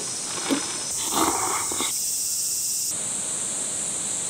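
Cicadas droning steadily in a high-pitched summer chorus, with two brief soft splashes in the first second and a half.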